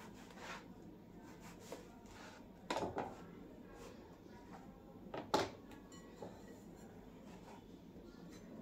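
Kitchen knife chopping bread into small cubes on a plastic chopping board: a few soft knocks of the blade on the board, the loudest a little under 3 seconds in and a sharp one past 5 seconds, with fainter taps between.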